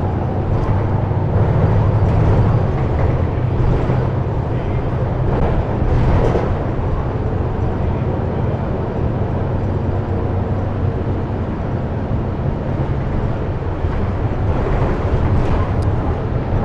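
Inside a moving 2004 Gillig Advantage transit bus: a steady low engine drone with road noise. A few short knocks and rattles come near the start, about six seconds in, and near the end.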